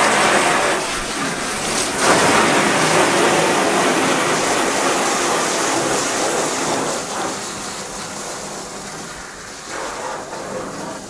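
Water rushing from a hose, a steady loud splashing that slowly tapers off toward the end.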